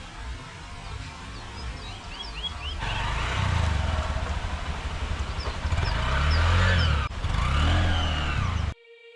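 A motor vehicle's engine running under a steady noisy rumble. It gets louder about three seconds in, then cuts off suddenly near the end.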